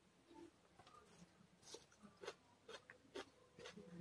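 Fingers mixing cooked rice on a ceramic plate: a faint string of soft, irregular ticks and rubbing.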